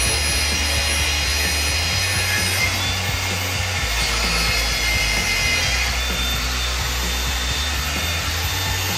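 Cordless angle grinder spinning a dry diamond core bit as it grinds into porcelain stone tile, a steady abrasive grinding with a high whine. Background music plays underneath.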